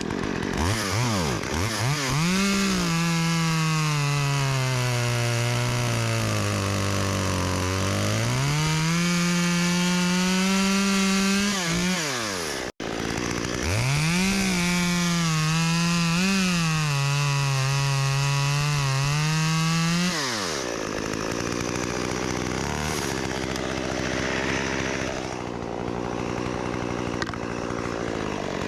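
Chainsaw running at full throttle and cutting wood. Its engine pitch sags under load and recovers in two long cuts, then it drops back to a low idle about two-thirds of the way through.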